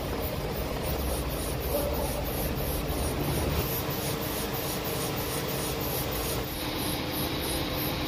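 Metal lathe running, turning a heat-treated steel bench-drill quill back to size: steady machine noise with the turning tool cutting the steel.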